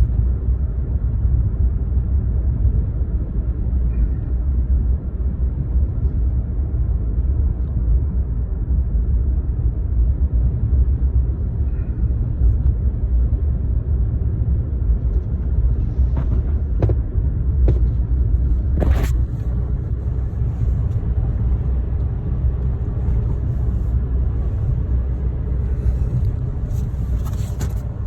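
Steady in-cabin rumble of a 2013 Chevrolet Sonic driving: engine and road noise, with a few short knocks about two-thirds of the way through. The car is not showing its misfire complaint at the moment.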